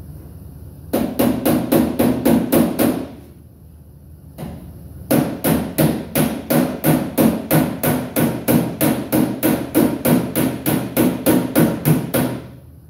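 Hammer blows on metal, about four a second: a short run of some nine strikes, a pause, then a longer run of about thirty strikes that stops near the end.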